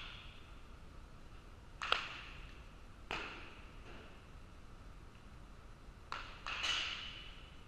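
Baseball smacking into leather gloves during live pitching: several sharp pops, each echoing through the gymnasium. The loudest comes about two seconds in, another just after three seconds, and a quick cluster follows about six seconds in, as a pitch is thrown.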